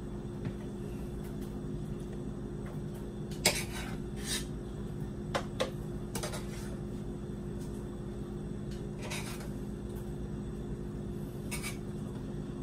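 A metal spoon scraping and knocking against a cooking pot and a plastic food container as cooked rice is spooned out, with a sharp knock about three and a half seconds in and a few lighter scrapes and taps after it. A steady low hum runs underneath.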